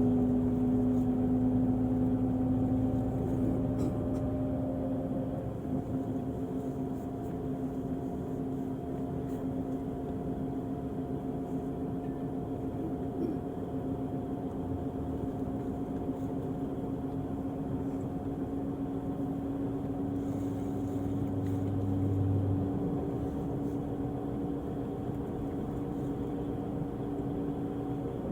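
Volvo-chassis Irizar i6s coach's diesel engine running steadily, its pitch holding level with no revving.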